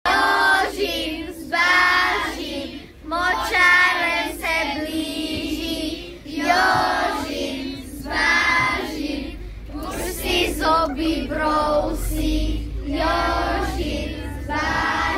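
A group of children singing a song together in short phrases, inside a moving coach with the bus's low rumble underneath.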